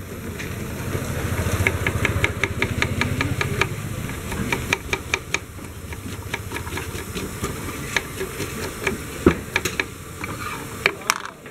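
Knife chopping onions on a wooden cutting board: quick, even taps about five a second, then slower, scattered strikes. A low hum runs underneath for the first few seconds.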